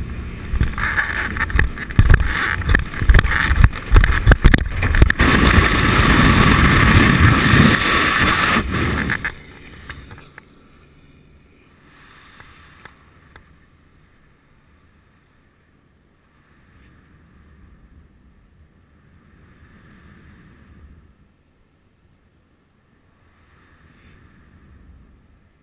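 Loud aircraft engine and slipstream noise with heavy wind buffeting on the microphone during a static-line parachute exit. It cuts off suddenly about nine seconds in, leaving near quiet with a few faint gusts of wind on the microphone under the open round parachute.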